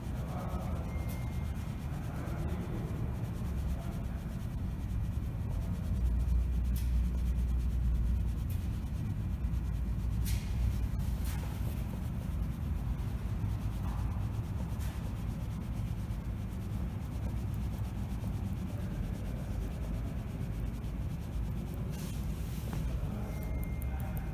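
Fabric rubbing and scraping against a handheld phone's microphone while walking, over a steady low rumble, with a few sharp clicks.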